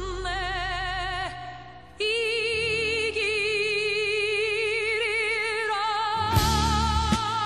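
Background music: a high melody sung in long held notes with strong vibrato. It briefly fades out just before two seconds in and then resumes, and a beat comes in about six seconds in.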